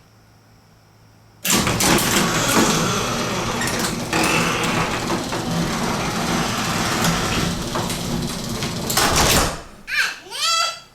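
Electric garage door opener running as the door closes: a loud, steady mechanical rumble and rattle that starts suddenly about a second and a half in and stops after about eight seconds. Near the end come two short sounds that rise in pitch.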